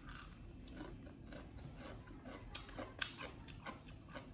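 Faint, irregular crisp clicks and small crunches of food, several a second.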